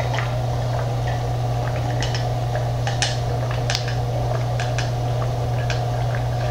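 A person drinking steadily from a tumbler close to the microphone: a string of small wet swallowing clicks over a steady low hum.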